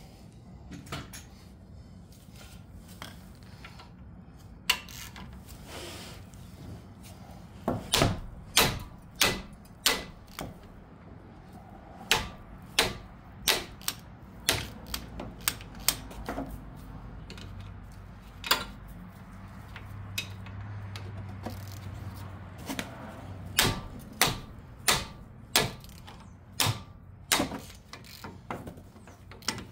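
A hammer striking a wrench handle to break loose a stubborn front brake caliper bracket bolt: sharp metallic strikes in three runs, about one to two a second.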